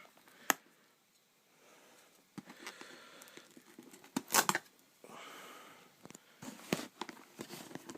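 Hands working at an external hard drive's retail packaging, trying to pop it open: scattered sharp clicks and crinkling, with a loud cluster of snaps about four seconds in.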